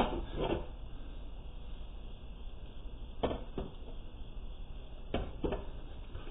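Three pairs of short knocks, about two seconds apart, over a low steady hum, from a person moving about in a garage.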